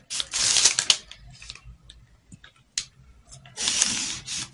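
Felt-tip marker drawn along a ruler on pattern paper, with the paper rustling: two short scratchy strokes, one near the start and one near the end, and a single light tick between them.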